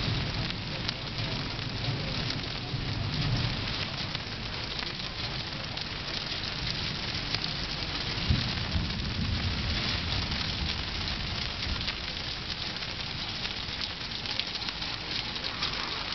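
Heavy rain pouring steadily in a thunderstorm, with low rumbles swelling a few seconds in and again around eight seconds in.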